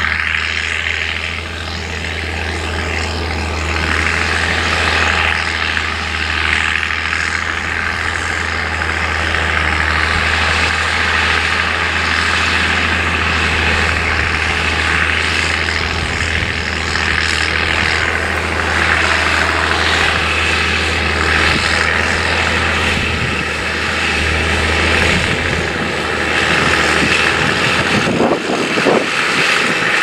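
Massey Ferguson 8480 tractor's six-cylinder diesel engine running steadily under load while pulling an eight-furrow plough. Its deep hum fades near the end as the tractor goes by.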